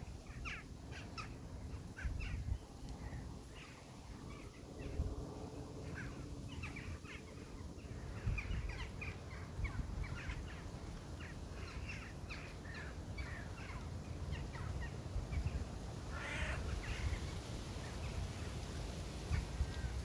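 A flock of crows calling, with many short caws overlapping in quick succession and a denser burst of calls about sixteen seconds in. A low rumble runs underneath.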